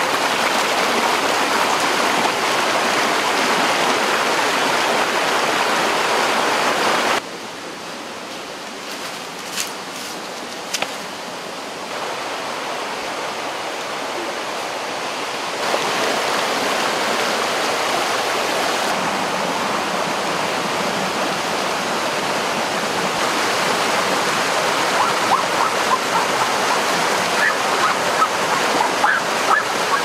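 Rushing water of a rocky stream tumbling over small cascades, a steady rush. It drops quieter for several seconds about a quarter of the way in, then comes back up.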